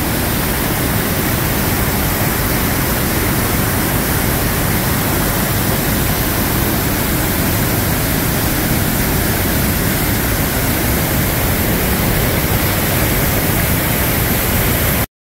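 Loud, steady rush of whitewater: a mountain creek tumbling through boulder rapids and pouring over the lip of a waterfall. It cuts off suddenly at the very end.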